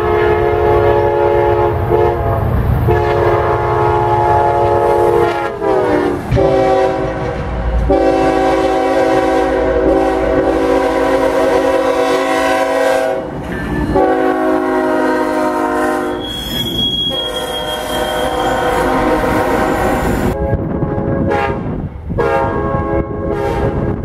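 Diesel locomotive multi-chime air horns blowing loud chords in long blasts, several trains one after another, with short breaks between them. Twice the chord slides down in pitch as a train goes by, and train noise from the rails rumbles underneath.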